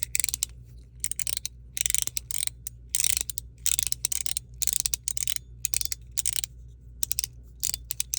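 PEI plastic mechanical slider fidget (Chenyu Guardian) slid back and forth, its ball bearings clicking in and out of the detent track. The strokes come in quick bursts, about one or two a second, with a soft clacky sound.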